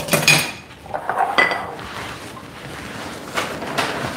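Dishes and utensils clinking and clattering in a stainless-steel kitchen sink. A few sharp knocks come in the first second and a half, some ringing briefly, followed by quieter handling noise.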